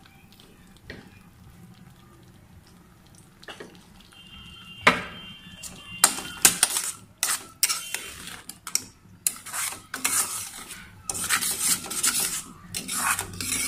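A metal spoon stirring a thick apple-and-sugar halwa mixture with ghee in a stainless-steel pan, scraping and clinking against the pan's sides in an irregular run. The stirring starts about five seconds in, after a few quiet seconds.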